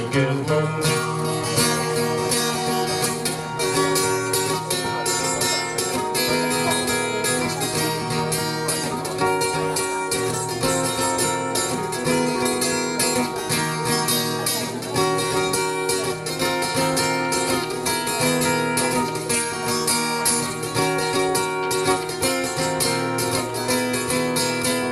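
Live acoustic band music: strummed acoustic guitars with plucked string lines in a Cajun-style instrumental break, no singing.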